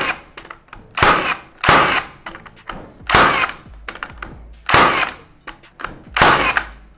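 Milwaukee M18 FFN21 cordless framing nailer firing single shots, driving 90 mm nails straight through a thin board: five sharp shots, about one to one and a half seconds apart.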